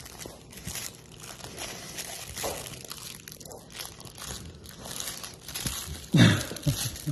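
A pit bull chewing and gnawing a plush rope toy, with irregular crinkling and crunching, and a louder short low sound about six seconds in.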